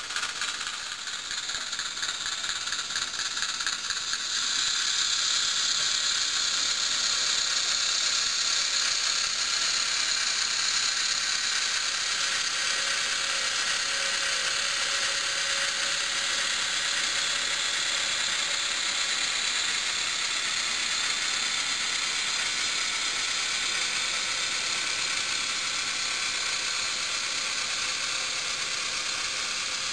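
H0-scale model freight train rolling along the track: a steady rattling hiss of small metal wheels on the rails, louder from about four seconds in.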